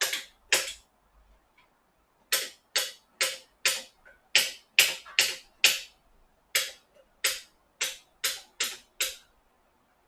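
Repeated sharp knocks, about two a second, each dying away quickly. There is a short run, a pause of about a second and a half, then a longer run of about fourteen knocks that stops about a second before the end, made while the hub motor is being worked apart.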